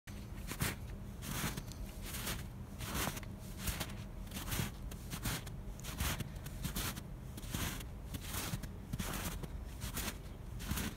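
Footsteps in snow at a steady walking pace, about four steps every three seconds.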